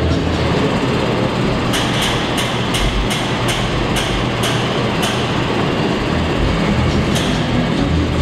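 Claas tractor's diesel engine running steadily as the hitched Väderstad tillage implement is folded up hydraulically. A run of even clicks, about three a second, comes from about two to five seconds in.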